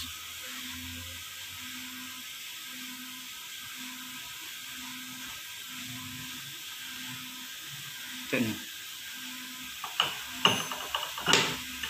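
Steel timing gears of a Mitsubishi 4D34T diesel being slid into mesh by hand, with a few sharp metal clinks and knocks in the last few seconds. Under it, a steady hiss with a faint low tone that pulses about once a second.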